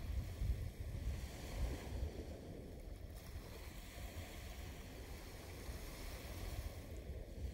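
Small waves washing onto a sandy beach, with a low wind rumble on the microphone.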